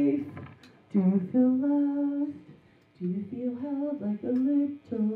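A woman's voice humming a slow tune without words and without accompaniment: a few phrases with long held notes, broken by short pauses.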